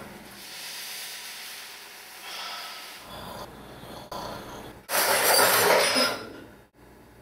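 A person breathing softly while dozing off, then a loud breathy hiss lasting about a second, about five seconds in.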